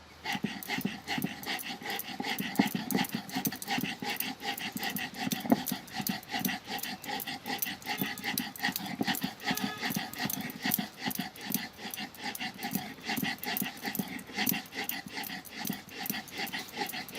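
Hand grinding on a stone silbatta: the hand stone is worked back and forth over the slab, giving a continuous rasping crunch with many sharp crackles as the salt crystals are crushed.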